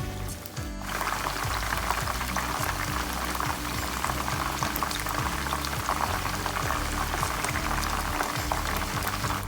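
Chicken deep-frying in hot oil: a dense, steady crackle that starts suddenly about a second in, over background music.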